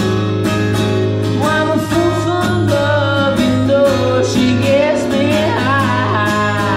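A man singing a bluesy song live, accompanying himself on a strummed acoustic guitar.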